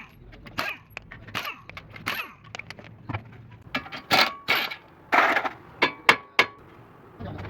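An irregular series of sharp knocks and clicks with several short, loud rattling bursts near the middle, like metal parts being worked or knocking against each other.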